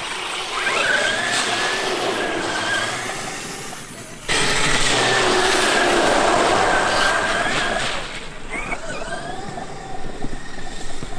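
Traxxas X-Maxx RC monster truck's brushless electric motor whining, its pitch rising and falling as the truck speeds up and slows down. It gets suddenly louder about four seconds in.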